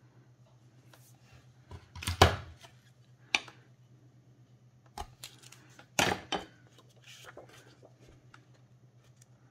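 Adhesive tape being pulled from its roll and laid along a cardstock flap: a few short rips and taps of tape and paper being handled, the loudest about two and six seconds in, over a faint steady low hum.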